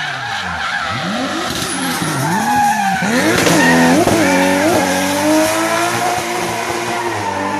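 Race car engine at high revs, rising and falling sharply in pitch as the driver works the throttle through a drift, with tyre squeal from the sliding tyres. A run of quick rev blips comes about three to five seconds in, the loudest part.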